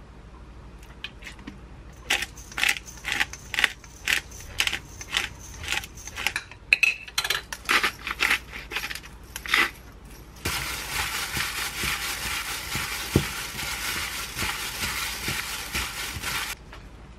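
Hand-turned spice grinder crunching peppercorns over a bowl of raw chicken in a run of short sharp cracks, two or three a second. Then about six seconds of steady rustling hiss as the chicken is mixed with a plastic-gloved hand, cutting off suddenly.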